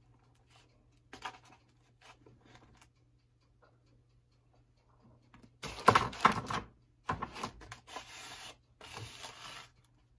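Paper rustling and scraping in a handful of short bursts over a few seconds, with faint taps and clicks before them.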